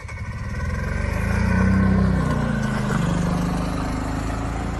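Vehicle engine running, its pitch wavering up and down, swelling to its loudest about two seconds in and then easing slightly.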